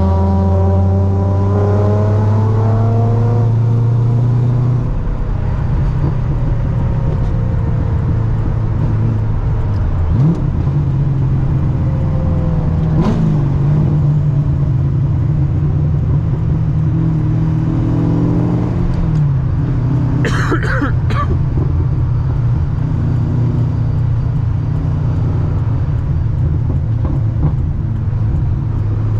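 Supercharged Corvette C6 LS3 V8 running at a steady cruise. Its exhaust gives a low, even drone that holds nearly the same pitch throughout.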